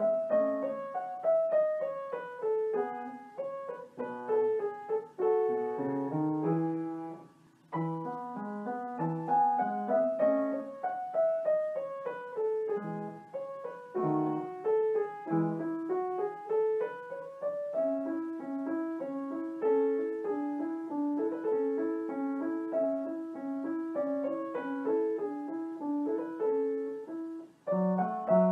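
Background piano music: a light melody in falling runs of notes, breaking off briefly a quarter of the way in, then settling into a steady repeated pattern in the second half.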